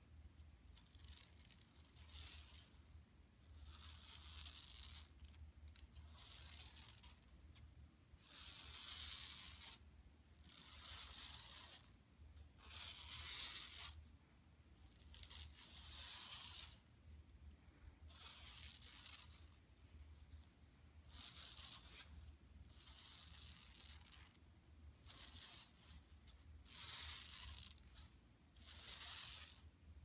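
Long fingernails scratching across a shopping bag in repeated strokes, each about a second long, with short pauses between them, over a faint low hum.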